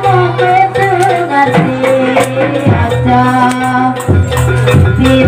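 Live jaranan gamelan music playing a fast sampak piece: repeated drum strokes and sustained low gong tones under a wavering high melody line, with a rattling jingle over it.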